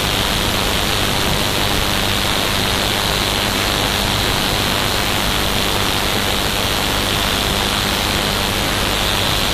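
BITX20 homebrew 20-metre SSB receiver's audio output giving a steady hiss of band noise with a faint low hum: an open channel with no station transmitting.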